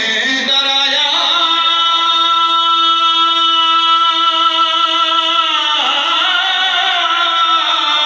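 A man singing into a microphone, amplified through a sound system. He holds one long steady note from about a second in until past the middle, then the melody moves on.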